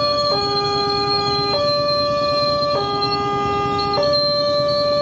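Wantech electronic level-crossing alarm sounding a two-tone warning that switches between a lower and a higher tone about every 1.2 seconds. Underneath it, a passenger train rolls slowly across with a low rumble.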